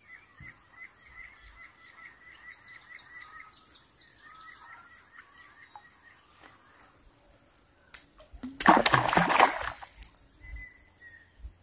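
Birds chirping in quick repeated notes for the first half. About eight seconds in, a sharp click, then a loud splash lasting about a second and a half.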